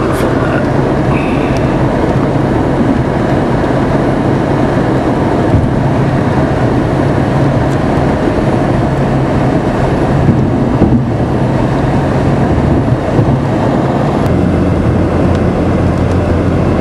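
Steady road noise inside a car driving at speed: engine and tyre drone under rushing wind, with a couple of brief bumps a little after halfway. The low drone changes pitch near the end.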